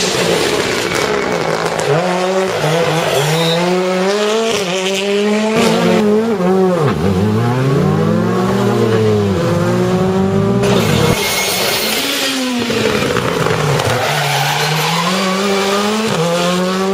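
Rally cars' engines revving hard, the pitch climbing through the gears and dropping sharply on lifts and downshifts, over several short back-to-back passes.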